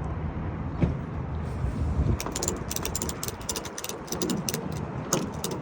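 Tie-down strap being tightened: a run of quick, sharp metallic clicks, like a ratchet strap being worked, after a single knock, over a steady low rumble.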